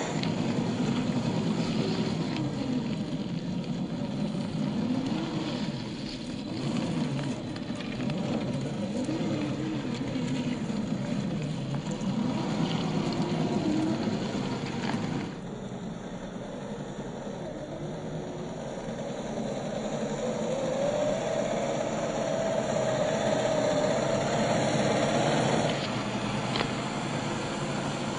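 1/10-scale RC crawler driving, its motor pitch rising and falling again and again with the throttle. The sound changes abruptly twice, at about 15 s and at about 26 s; between about 20 and 26 s it holds a steadier, slowly rising tone.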